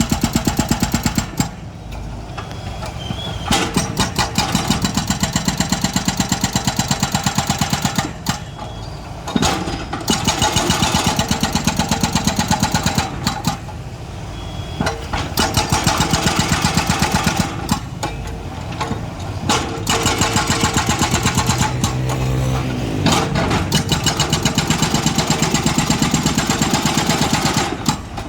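Excavator at work: several bursts of rapid, even pounding, each a few seconds long, with the diesel engine running in the shorter pauses between them.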